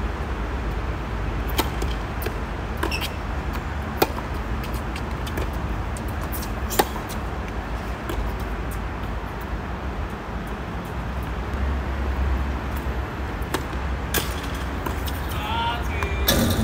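Tennis ball struck back and forth during a rally on a hard court: a series of sharp, separate hits one to three seconds apart, the loudest about four and seven seconds in, over a steady low rumble.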